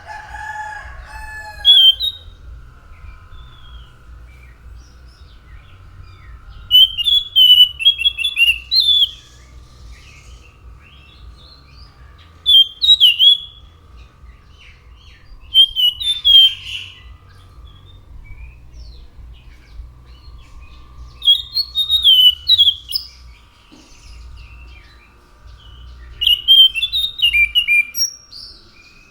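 An anis macan thrush singing in short bursts of quick, high warbled phrases, about six of them spaced a few seconds apart. A lower call comes in the first second, and a faint steady hum runs underneath.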